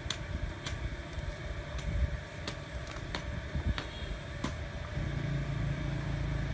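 Scissors snipping through a rubber inner tube: a run of sharp clicks, about seven over the first four and a half seconds. A low steady engine hum comes in about five seconds in.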